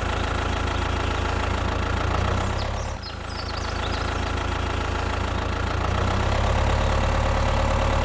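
Tractor engine idling, a steady low drone that dips briefly about three seconds in.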